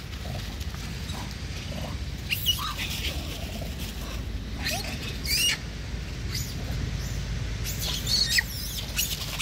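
Young macaques giving short high-pitched squeaks and squeals, several separate calls with quick pitch slides, over a steady low rumble.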